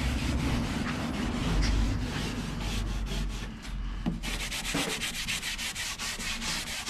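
Cloth rag rubbed back and forth over a plywood dresser top, wiping in teak oil: a dry scratchy rubbing, with quick, even strokes in the second half.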